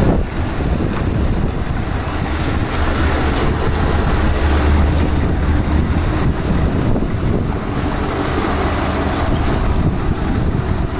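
Scania V8 truck's engine running steadily on the move, a low drone under heavy wind and road noise.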